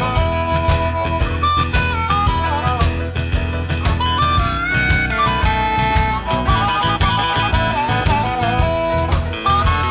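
Electric Texas blues band playing an instrumental break: a lead line with bent notes, most likely electric guitar, over a steady bass and drum kit.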